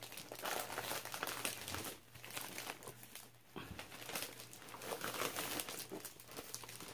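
Clear plastic sleeve crinkling as a rolled canvas is slid out of it, in irregular bursts with short lulls about two and three and a half seconds in.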